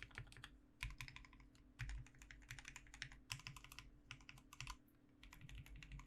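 Typing on an Ambition67 gasket-mount mechanical keyboard with lubed and filmed Alpaca linear switches on an FR4 plate. Quick, quiet runs of keystrokes are broken by short pauses.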